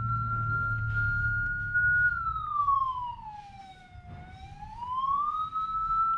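CJB 200W electronic siren module sounding a slow wail through its speakers. The tone holds high, sweeps down to a low point about four seconds in, then climbs back and holds high again.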